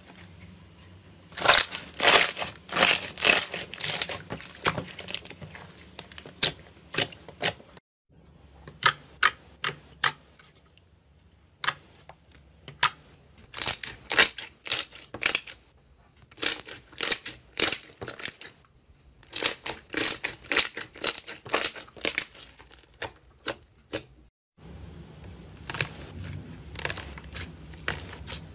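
Hands pressing and squeezing a clear green slime, making rapid clusters of sharp wet pops and clicks. Near the end, fingers press a white butter slime under a sheet of gold foil, which gives crinkling clicks.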